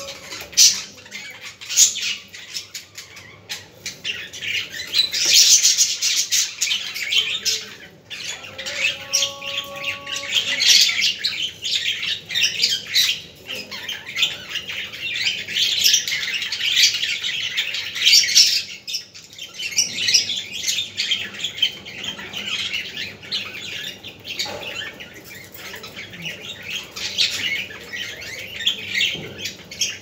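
A group of caged budgerigars chattering together: a dense, unbroken run of quick high chirps, warbles and squawks that swells and eases off with short lulls.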